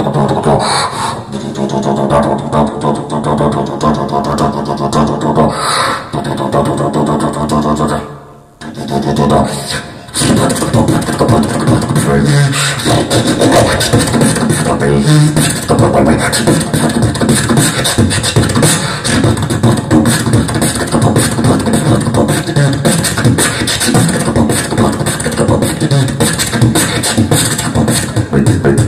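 Solo beatboxing into a handheld microphone: a fast, dense stream of mouth-made kick, snare and bass sounds, amplified. It breaks off briefly about eight seconds in, then resumes.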